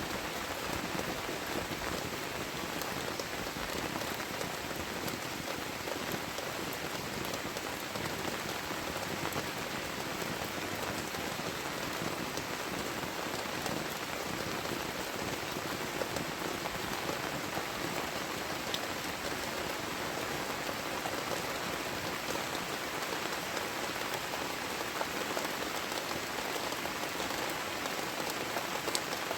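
Heavy tropical rain falling steadily, a dense hiss of rain with many individual drops ticking through it.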